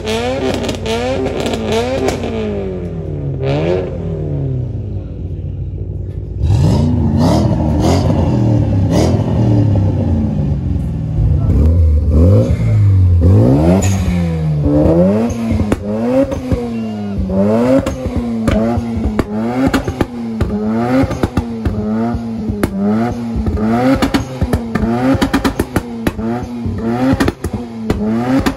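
Parked car's engine being revved over and over in quick blips, the pitch rising and dropping back roughly once a second. There is a lull a few seconds in, then harder, deeper revs before the quick blips resume.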